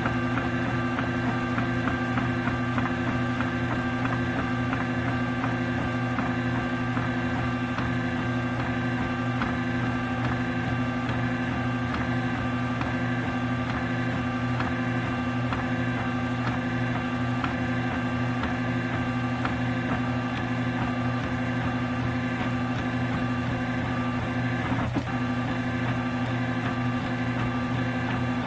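MendelMax RepRap 3D printer running a print, its stepper motors whining in several steady tones over a low hum as the extruder lays down ABS.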